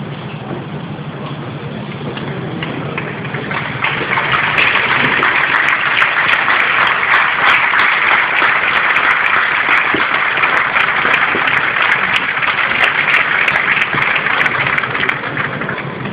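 A stadium crowd applauding: dense clapping swells in about four seconds in and dies down near the end, over a low steady murmur.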